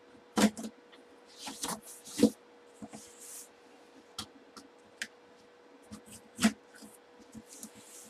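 Cardboard shipping box being cut open with a box cutter and handled: scraping swishes of the blade through the packing tape and cardboard, and several sharp knocks on the box, the loudest about half a second in, a little past two seconds and about six and a half seconds in.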